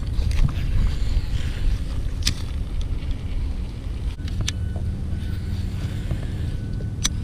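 Low rumble with a few sharp clicks as a baitcasting rod and reel are handled and cranked through a lure retrieve.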